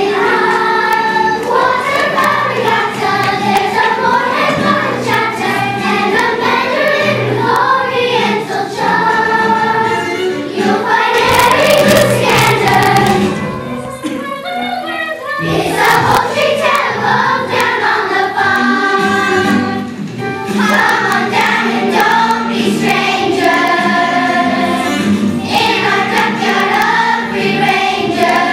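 Children's choir singing a musical number together, over instrumental accompaniment, with a short break about halfway through.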